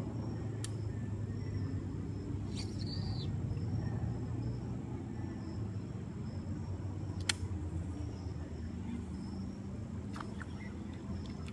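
Outdoor pond-side ambience: a steady low rumble like distant road traffic, with a faint high-pitched drone, a short chirp about three seconds in and a sharp click about seven seconds in.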